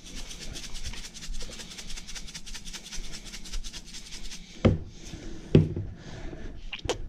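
A spice shaker is shaken rapidly as pepper is sprinkled over a raw brisket, making a quick, even rattle. About two-thirds of the way through, two loud thumps follow, then a sharp click near the end.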